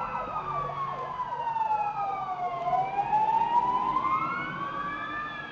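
Cat yowling in a fight standoff: one long drawn-out yowl that falls slowly in pitch, rises again, and starts to fall near the end.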